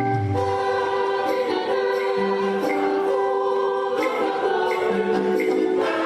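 Intro music: a choir singing slow, held chords.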